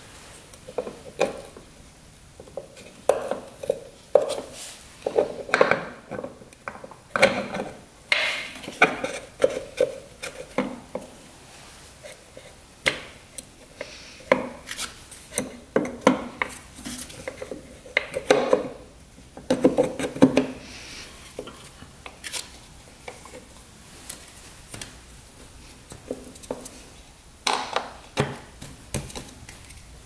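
Metal hand tools and motorcycle engine parts clinking and knocking in an irregular run, some strikes ringing briefly; busiest in the first two-thirds, with a few more near the end.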